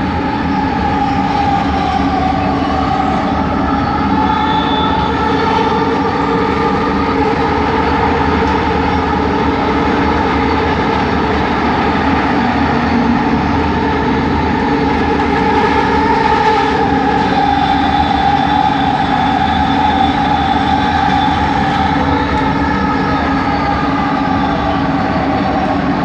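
Original Kelana Jaya Line train running, heard from inside the carriage: its linear induction motors give a steady hum of several whining tones that slowly rise and fall in pitch with the train's speed.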